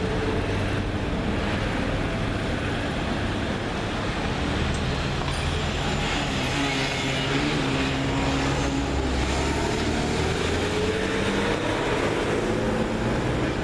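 Strong wind blowing across the microphone: a steady, loud rumble and rushing hiss.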